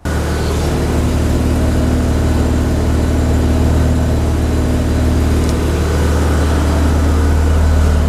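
Mazda FD RX-7's twin-rotor rotary engine idling steadily, with the A/C switched on for charging the system through the low side.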